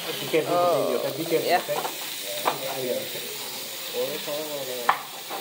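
Chicken sizzling and hissing on a hot metal sizzler plate just brought to the table, giving off steam, with a couple of sharp clinks of dishes being set down.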